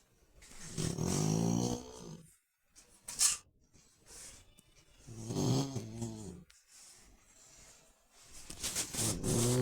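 A dog snoring in its sleep: three long snores on the in-breath, about four seconds apart, with a brief click between the first two.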